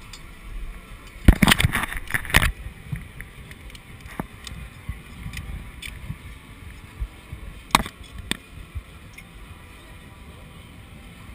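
A few sharp knocks and clicks, the loudest a cluster about a second in and two more near eight seconds, over a steady low rumble of fairground noise.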